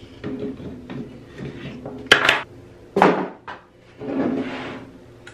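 Adjustable wrench turning and working off the plastic port caps on an aluminium differential oil cooler: scattered clicks and scraping of plastic and metal, with one sharp click about two seconds in the loudest.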